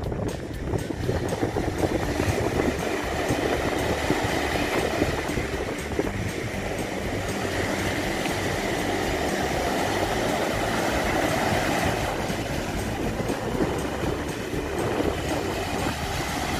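Rough sea surf breaking and washing up a sandy beach in a steady, continuous rush, with strong wind buffeting the microphone in a choppy low rumble. The sea is high, with waves of one to two metres, as a storm approaches.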